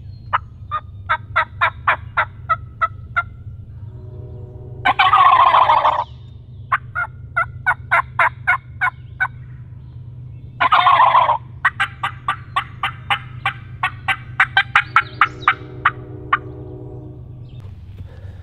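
A wild turkey gobbler gobbles twice, loudly, about five seconds in and again near eleven seconds, answering runs of sharp, quickly repeated hen-turkey cutts and yelps from a turkey call.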